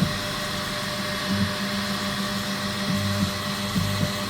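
Bambu Lab X1 Carbon 3D printer's motors humming in steady tones that jump in pitch as the print head moves, drawing its first line, over a steady whir.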